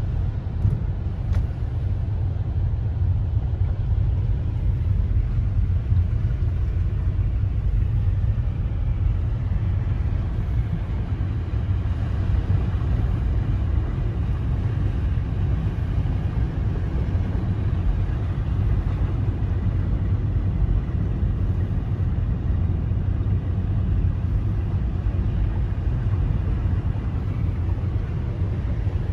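Steady low rumble inside a moving car's cabin as it drives with its tyres running through floodwater.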